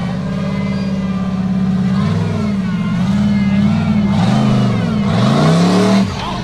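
Formula Offroad buggy's engine revving hard under load as it climbs a steep dirt bank. The pitch wavers at first, then swings up and down sharply from about four seconds in, and the engine note drops off suddenly near the end.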